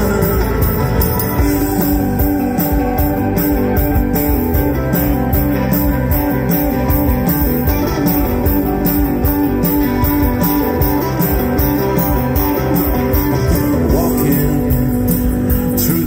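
Live rock band playing loudly in an instrumental passage: electric guitars, bass guitar and drums, with a steady drum beat.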